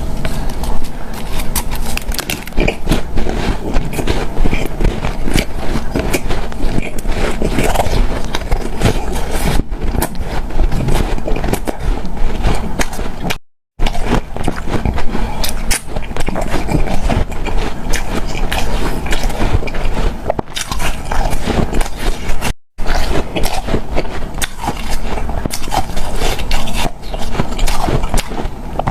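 A person biting and chewing hard, powdery refrozen ice: a dense, continuous crunching and crackling, broken by two brief gaps of silence.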